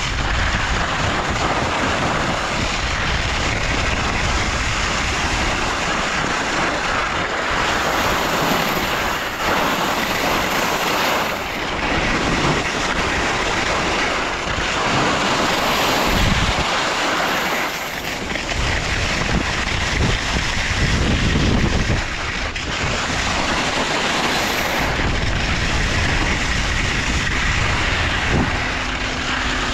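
Skis hissing and scraping over groomed snow during a downhill run, with wind rushing over the microphone. The rumble rises and falls every few seconds.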